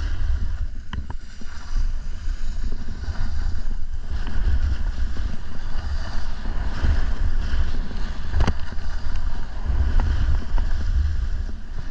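Heavy wind rumble buffeting the microphone over the rushing hiss of a snowboard sliding on snow, with a sharp knock about eight and a half seconds in.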